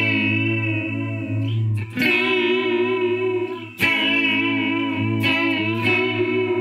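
Electric guitar chords played through an Old Blood Noise Endeavors Reflector pedal in its pitch vibrato (wrinkle) mode, each chord wavering steadily in pitch. The chords are struck several times, with fresh strikes about two seconds in, about four seconds in, and twice near the end.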